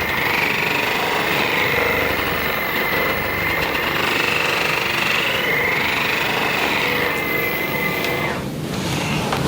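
Electric percussion massage gun running, a steady buzz with a whine that rises and falls, stopping a little after eight seconds in.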